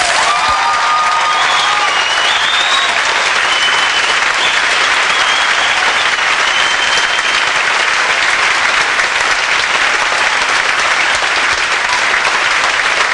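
Audience applauding, loud and steady, at the close of a show.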